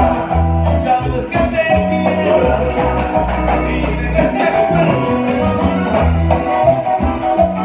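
Live band playing amplified music with electric guitar, drums and trumpets, heard from the room.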